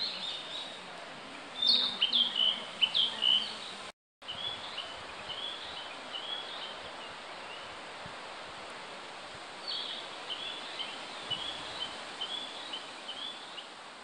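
Male narcissus flycatcher singing: phrases of short, clear whistled notes repeated with pauses, loudest about two to four seconds in, over a steady forest background hiss. The sound cuts out for a moment about four seconds in.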